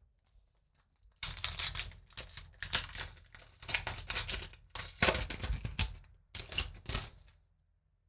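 Foil booster-pack wrapper being torn open and crinkled by hand, a run of crackling bursts that starts about a second in and stops near the end.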